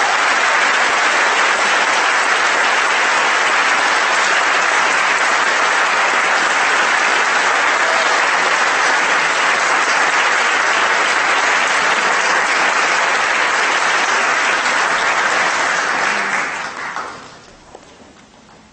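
Large audience applauding steadily in a hall, a long sustained round of clapping that dies away about three seconds before the end.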